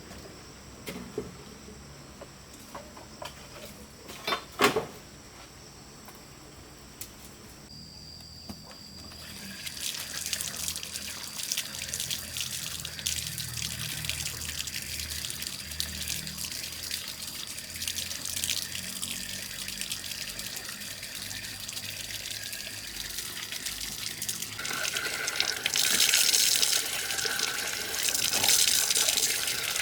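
Water running or pouring in a steady rush that starts about a third of the way in and grows louder near the end. Before it, a quiet stretch with a few sharp knocks.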